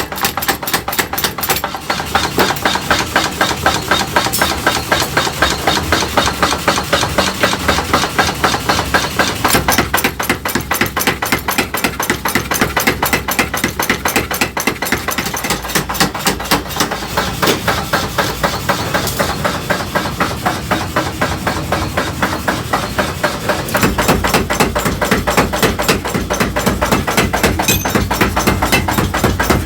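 Rapid, steady hammering on metal, blow after blow at several strikes a second, in a blacksmith's forging of tongs. A deeper, heavier layer joins the blows about three-quarters of the way in.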